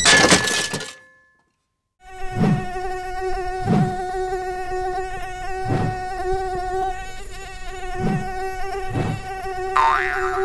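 Small quadcopter drone in flight, its propellers buzzing with a steady high whine, crossed by a few dull low thumps at uneven intervals. The whine starts about two seconds in, after a short noisy burst that cuts off into a second of silence.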